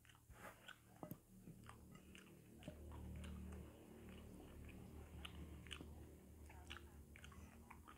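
Faint chewing and eating sounds of ripe jackfruit flesh, with many small scattered soft clicks as the sticky fruit is pulled apart by hand.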